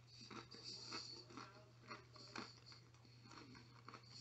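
Faint chewing of a mouthful of pizza, mouth closed, with soft irregular clicks and smacks over a steady low hum.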